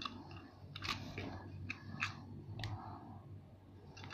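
Hands handling a foam squishy toy: scattered light crackles and clicks, a few sharper ones about a second in, two seconds in and near the end.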